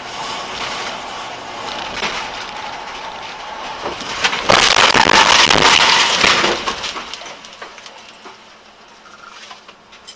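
Car driving with road and engine noise building, then about four and a half seconds in a loud crash lasting about two seconds as the dash-cam car collides, dying away after.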